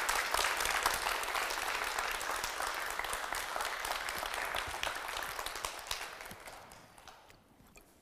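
Audience applause: many people clapping, thinning out and dying away over the last couple of seconds.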